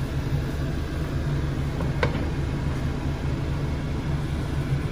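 Pot of white radish soup at the boil on the stove, under a steady low mechanical hum with an even pulse. A single sharp click about two seconds in as a glass lid is set on the pot.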